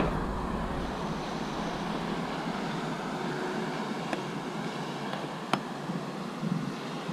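A screwdriver clicking sharply against a metal reversing-camera bracket a few times, the loudest click about five seconds in, over a steady background rumble.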